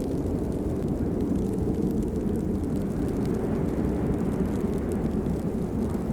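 Steady rain noise, mostly a low rumble.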